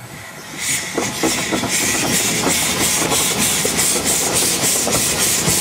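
Mount Washington Cog Railway steam locomotive working, its exhaust chuffing in an even run of hisses, several a second, over the running noise of the cog train. The sound swells up about half a second in and then holds steady.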